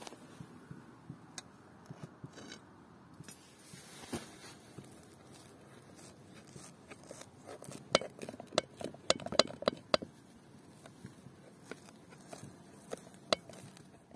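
A knife cutting through a crisp-crusted baked pastry in a metal plate: scattered clicks, then a dense run of sharp cracks and clicks about eight seconds in that lasts a couple of seconds.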